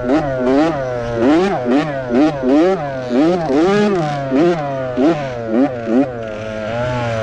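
Small pit bike engine revving up and down in quick, repeated throttle bursts, two or three a second, the pitch steadying for a moment near the end as it works around a motocross track.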